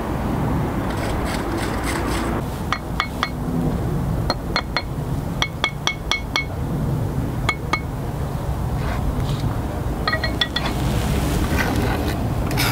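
Small hammer tapping blue bricks down into their mortar bed to set them level. The taps are sharp ringing chinks that come in quick clusters of two to five, over a low rumble of wind on the microphone.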